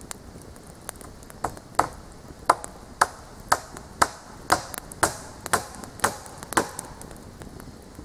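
A hammer driving nails into wooden boards: about a dozen sharp, ringing blows at a steady pace of roughly two a second, starting a second and a half in and then stopping.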